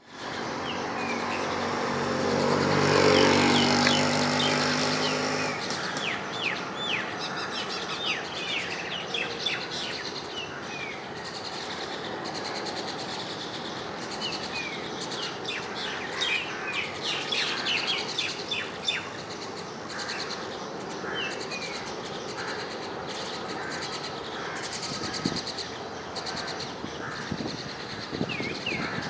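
Common mynas chirping and calling while foraging, with many short sharp calls that come in quick clusters, busiest near the middle. In the first few seconds a low engine drone builds and fades, loudest about three seconds in.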